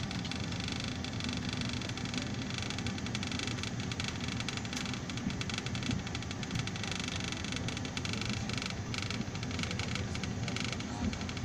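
Bus engine and tyre noise heard from inside the cabin while driving: a steady low rumble with road hiss and no marked changes.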